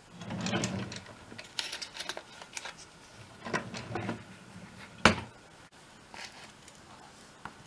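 A desk drawer sliding open and small items rattling and clicking as a plastic tool is taken out, with one sharp knock about five seconds in.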